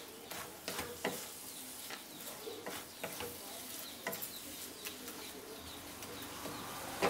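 Wooden spatula stirring and scraping a thick mixture of grated coconut and sugar in a nonstick pan, irregular scrapes and taps over a faint sizzle. The coconut mixture is cooking down on low heat toward a sticky dough, stirred to keep it from catching on the pan.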